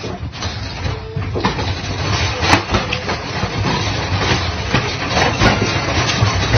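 Wire pet crate rattling and clanking as two cats wrestle inside it, with repeated knocks against the bars over a steady rumbling noise.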